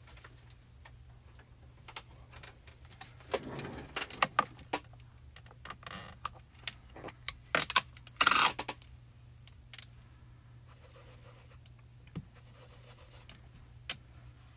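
Plastic ink pad cases being handled on a craft mat: clicks and knocks as the lids are opened and the pads set down, with a louder scrape about eight seconds in, then a faint soft rubbing of an ink blending tool on paper.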